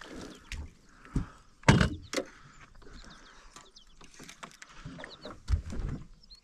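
Handling knocks on a fishing boat as a hooked bass is brought in: a few sharp knocks and clunks, the loudest a little under two seconds in, with faint high chirps in between.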